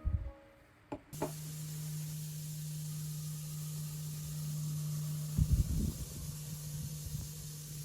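An electric appliance clicks on about a second in and runs with a steady low hum and an even hiss. A few low thumps come about five and a half seconds in.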